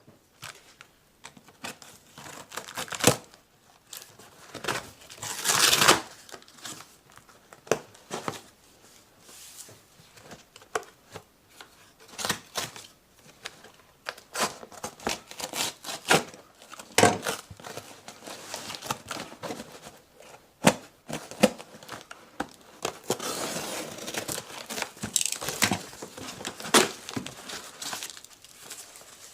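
A battered shipping box being torn open and its contents unpacked: repeated tearing and crinkling of packaging, with sharp knocks and clicks as things are handled.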